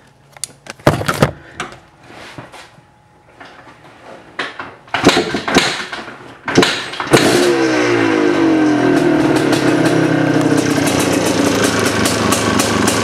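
A 1979 Yamaha IT400's single-cylinder two-stroke engine being started. Several clunks and short bursts come first. At about seven seconds it catches, its revs fall and it settles into a steady idle.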